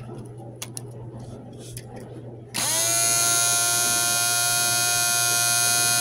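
Homemade Snap Circuits electronic siren switching on about two and a half seconds in. It gives a loud, buzzy electronic tone that glides up briefly and then holds steady. Before it come a few clicks.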